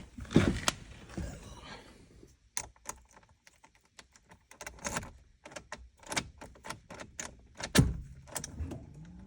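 Freshly cut key clicking and rattling as it is put into and turned in a 2005 Ford Focus ignition lock, with many short metallic clicks and two heavier thunks, one about half a second in and one near the end.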